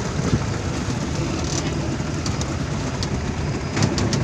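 Motorboat engine running steadily under a low rumble of wind and water, with a few light clicks or knocks near the end.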